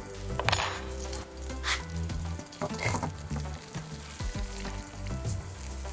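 Chopped onion sizzling in butter in a hot frying pan, with short louder hisses about half a second in, near two seconds and near three seconds.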